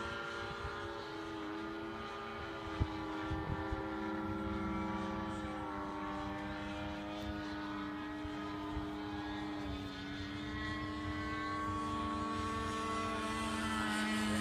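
Stinson Reliant airplane flying overhead, its propeller engine a steady drone with slowly shifting pitch. A few sharp clicks come about three seconds in.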